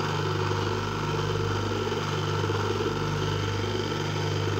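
Single-phase washing-machine wash motor running on its capacitor, giving a steady even mains hum as it turns in the timer's two-way (reversing) wash cycle.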